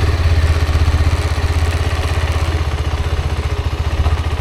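Motorcycle engine running at a steady low speed, its firing pulses even, gradually getting a little quieter.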